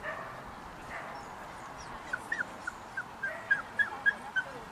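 Small Russell terrier giving a run of about ten short, high yips and whimpers, a few per second, starting about two seconds in.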